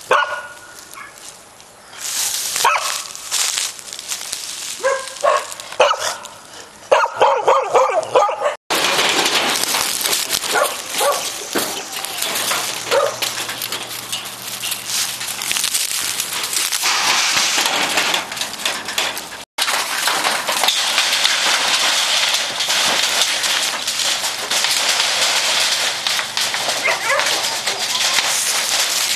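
Many shelter dogs barking and yelping at once, an overlapping continuous clamour, with two brief sudden drop-outs.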